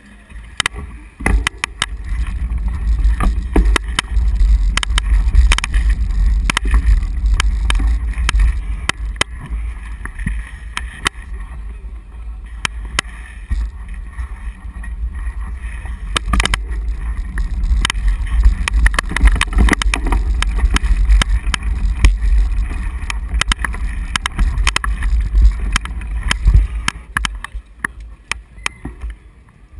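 Heavy wind rumble and rattling knocks on a bicycle-mounted camera while riding, with many sharp clicks over a constant low buffeting. It eases off briefly about halfway through and dies down near the end.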